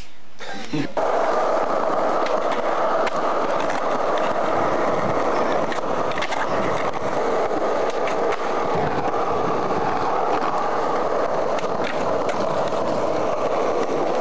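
Skateboard wheels rolling over pavement in a steady rumble, starting about a second in, with occasional sharp clacks from the board.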